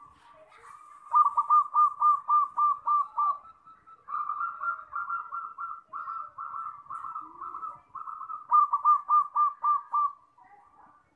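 Zebra dove (perkutut) cooing: three phrases of quick, evenly spaced staccato notes. The loudest phrases come about a second in and near the end, with a softer, denser run in between.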